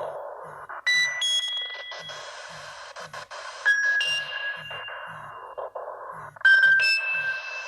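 Nokia 6300 mobile phone playing an instrumental polyphonic ringtone: bright, bell-like synth notes that strike and fade over a steady low beat of about two pulses a second.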